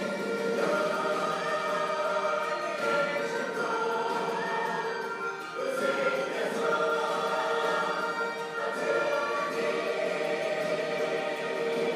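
Choral music: a choir singing long held notes that move to new chords every second or two.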